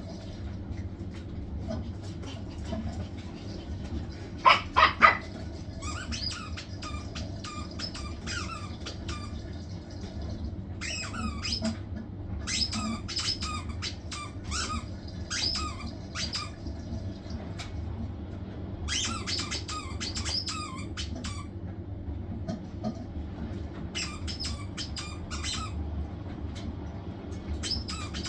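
Hisense washing machine running on spin with a steady low hum. Over it come repeated bursts of quick, high-pitched squawking chirps, loudest about four seconds in.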